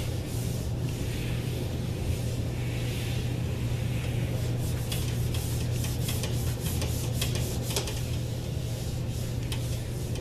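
Whiteboard eraser rubbing across a whiteboard in repeated wiping strokes, with short scuffs as it drags, over a steady low hum.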